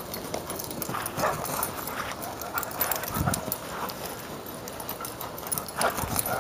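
Greyhound galloping on grass: its paws thud on the turf in quick, irregular footfalls, loudest about six seconds in as it runs close by.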